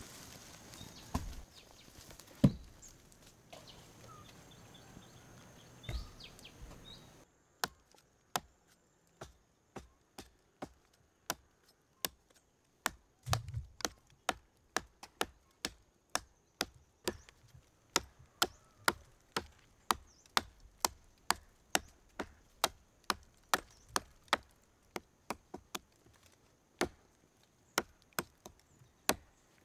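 Wood being chopped by hand with a blade: sharp strikes, first a few scattered ones, then from about seven seconds in a steady run of about one or two a second.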